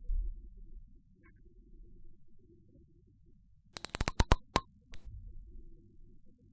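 Garden cat scarer emitting its alarm, a loud, very high-pitched steady tone lasting about three and a half seconds. It cuts off suddenly, followed by a quick run of about seven clicks as a knob on the unit is turned.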